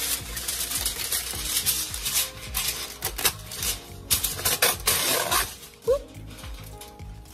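Heavy-duty aluminum foil crinkling and rustling as it is pulled from its cardboard box, a dense run of crackles with a short lull about six seconds in.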